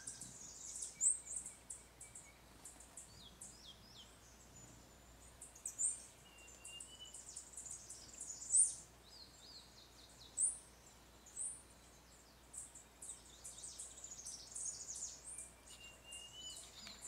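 Small forest birds chirping and twittering: many short, very high notes, with a handful of louder chirps spread through and a couple of thin, held whistles lower down.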